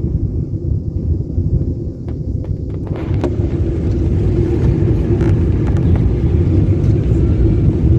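Airliner cabin noise during landing: a loud, steady low rumble of engines and airflow, with a hiss that grows louder from about three seconds in.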